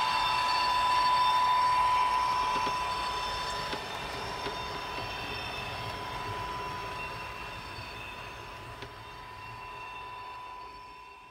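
H0-scale model train running, a steady high whine that slowly fades as the train moves away.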